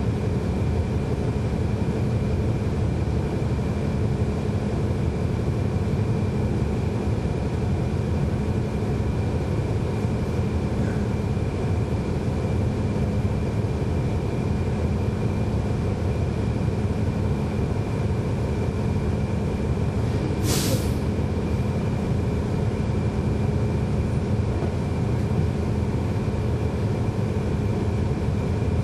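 Cummins ISL9 straight-six diesel engine of a 2011 NABI 40-SFW transit bus, heard from on board, running steadily with a thin steady high whine above the engine note. About twenty seconds in comes a short hiss of air from the bus's air brake system.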